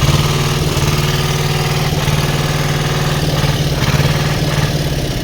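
A heavy engine running loud and steady with a low hum, building up just before and easing off near the end.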